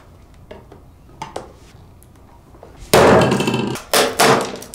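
Screwdriver prying at the seam of the black plastic base of a magnetic levitation globe, with a few light clicks and scrapes. About three seconds in comes loud cracking and snapping of plastic as the housing is pulled apart, with more cracks just after.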